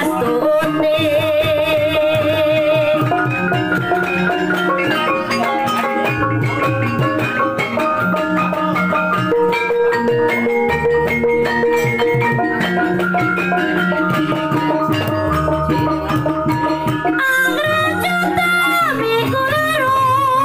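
Javanese gamelan playing a gending: rows of bronze bonang kettle gongs struck in quick, even patterns, with deeper gong tones underneath and a kendhang hand drum.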